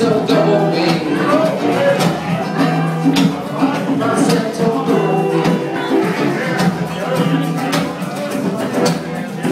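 Live music from a small acoustic band, led by a strummed acoustic guitar with a steady beat.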